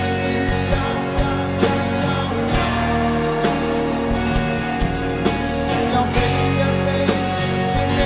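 Live rock band playing an instrumental passage: guitars and other sustained instruments over a steady drum beat.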